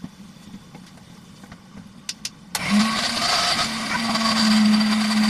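Electric mixer grinder switched on after a couple of clicks, its motor running with a steady hum and grinding noise for about three seconds before it stops.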